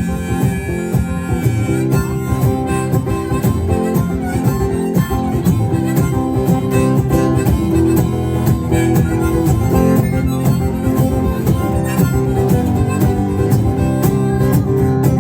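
Instrumental break in a folk-blues song: harmonica playing over strummed acoustic guitar, no singing.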